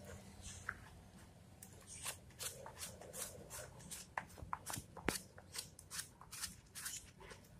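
A rubber bath brush and hands scrubbing a Cavalier King Charles spaniel's wet, shampoo-lathered coat: a quick, irregular run of short rubbing strokes, several a second, thickest from about two seconds in.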